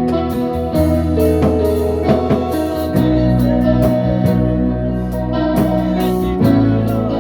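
A live band playing instrumental gospel music: electric guitar over held bass notes, with regular cymbal hits keeping the beat. The bass changes note about three seconds in and again near the end.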